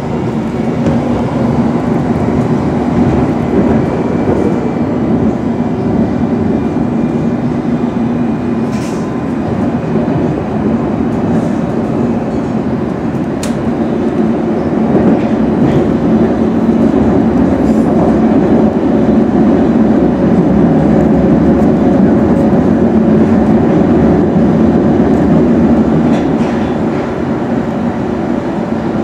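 London Underground S7 Stock train running at speed between stations, heard from inside the carriage: a steady rumble of wheels on rail with a low motor hum and a few faint clicks. It grows a little louder about halfway through.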